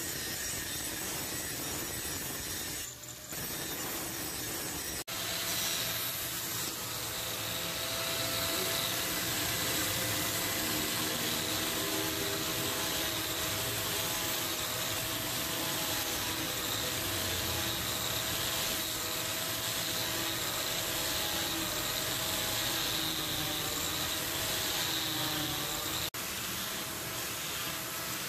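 Angle grinder running steadily with an abrasive disc grinding across a knife blade made from a steel file. The motor's whine wavers in pitch as pressure on the blade changes, and the sound dips briefly a few seconds in and near the end.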